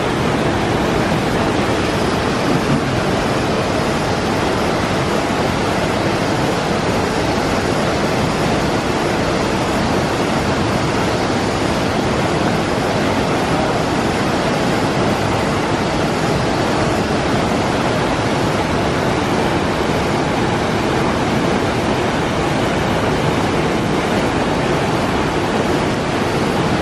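Waterfall pouring into a river pool: a loud, steady rush of water that does not change.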